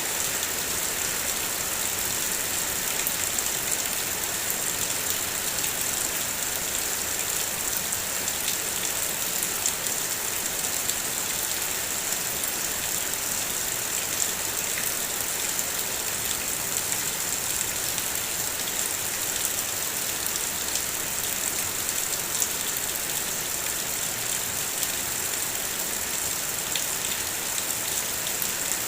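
Steady heavy rain falling, a constant hiss with scattered individual drop ticks.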